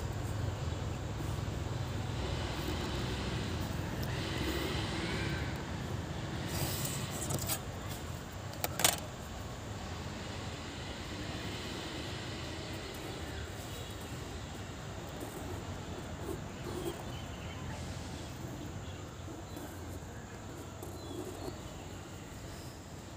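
Steady low background rumble with faint scattered sounds, broken by one sharp click about nine seconds in.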